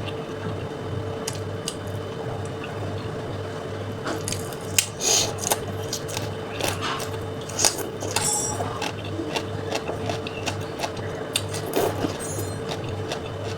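Close-miked eating sounds: chewing with wet, squishy clicks and smacks at irregular intervals, more frequent from about four seconds in, over a steady low hum.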